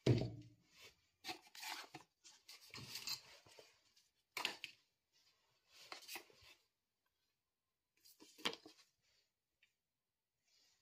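A plastic phone-charger brick set down on a tabletop with a thump, then paper manuals and cards slid out of a cardboard box and handled in several short rustling bursts.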